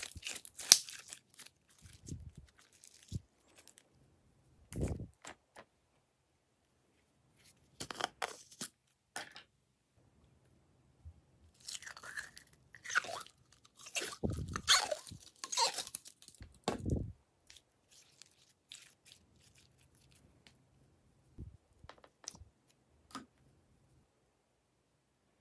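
Slime being squeezed and pressed by hands: wet squishing and crackling in irregular bursts with short quiet gaps, thinning to a few faint clicks over the last several seconds.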